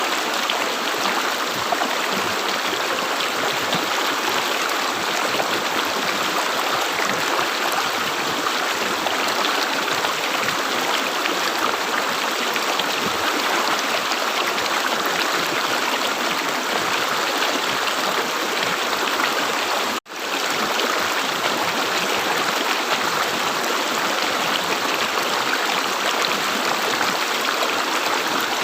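River water gurgling and rushing over a shallow stretch, steady and unbroken, except for a split-second dropout about two-thirds of the way through.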